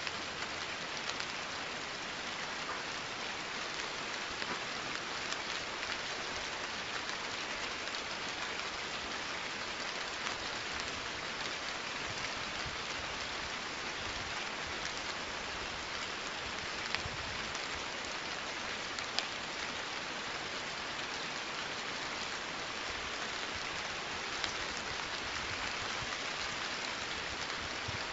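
Steady rain, an even hiss with a few sharper drop ticks.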